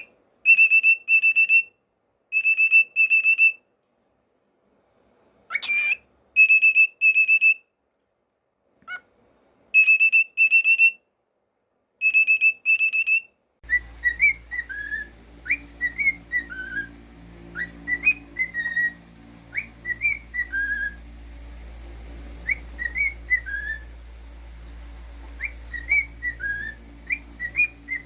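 Cockatiel whistling. First comes a series of level, high whistle notes in pairs and short groups, with silent gaps between them. About halfway through, a low hum comes in and the whistling turns into quick short chirps that slide up and down in pitch.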